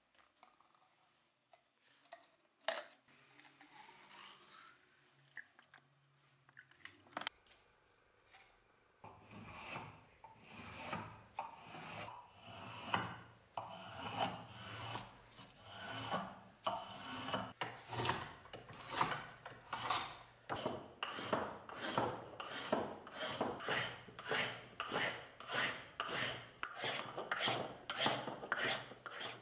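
Hand file shaping a wooden hammer handle clamped in a vise, in steady repeated strokes about one and a half a second. The strokes start about nine seconds in, after a quieter stretch of light handling noises and a single click.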